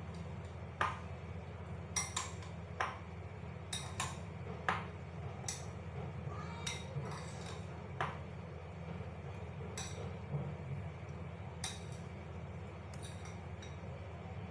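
A spoon clinking and scraping against a ridged glass bowl as chopped salad is tossed and mixed. The clicks are irregular, about one a second, over a steady low hum.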